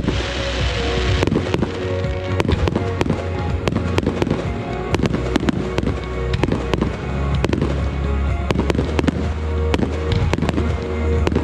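Fireworks display: many sharp bangs and cracks in quick, irregular succession, with a hissing crackle in the first second or so. Music with sustained notes and a steady bass plays underneath.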